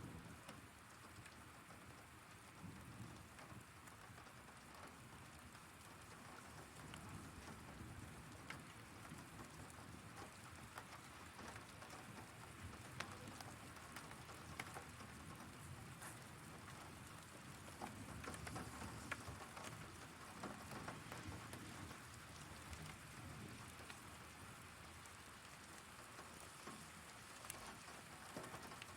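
Steady heavy rain falling, faint, with many separate drops ticking sharply on a hard surface.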